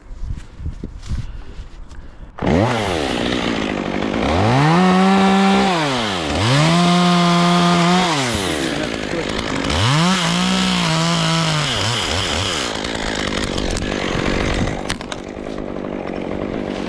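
Two-stroke chainsaw starting abruptly about two seconds in, then revved up to full throttle and back down three times, before running on at a lower, steadier speed near the end.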